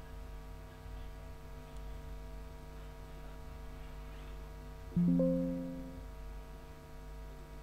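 Windows 11 system alert chime, a short chord of a few notes that sounds once and fades out over about a second, as a message dialog pops up. Under it runs a steady low hum.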